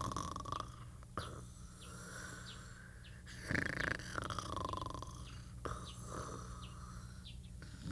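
Cartoon snoring sound effect: slow, long drawn breaths in and out, each about two seconds, with a whistling tone in them. Short high chirps sound faintly in the background.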